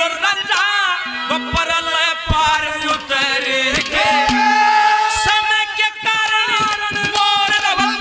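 Male singer performing a Haryanvi ragni live, his voice held on long wavering notes with vibrato, over instrumental accompaniment with scattered drum strikes.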